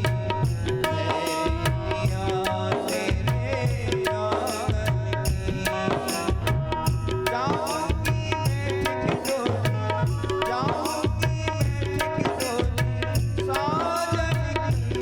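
Instrumental passage of devotional Indian music: a steady tabla and drum rhythm under a melody of held notes with some sliding phrases.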